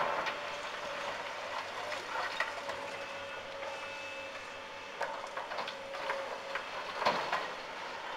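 Demolition excavator with hydraulic crusher jaws breaking up a building's concrete and brickwork. Irregular sharp cracks and clattering rubble, loudest about seven seconds in, sound over the steady hum of the running machine.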